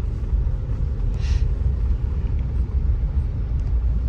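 Steady low road and engine rumble inside a moving car, with a brief hiss about a second in.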